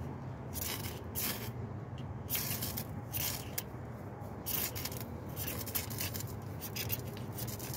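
Ferro rod (ferrocerium rod) scraped hard with a striker, a series of quick, unevenly spaced rasping strokes throwing sparks onto tinder.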